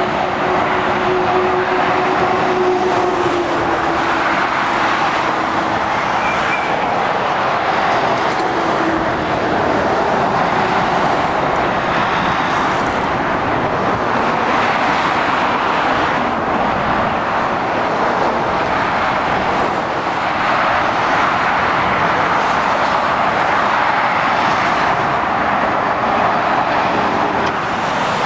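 Steady motorway traffic: lorries and cars passing on a dual carriageway, a continuous rush of tyres and engines. A faint engine hum dips slightly in pitch in the first few seconds as a lorry goes by.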